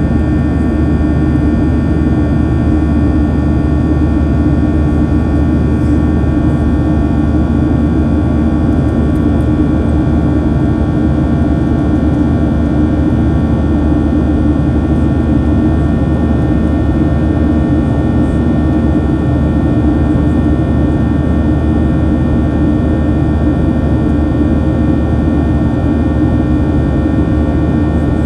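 Cabin noise of a Boeing 737-800 in its climb, heard from a window seat beside the wing: the CFM56-7B turbofan runs steadily, a constant low rumble and hum with several steady high whining tones over it.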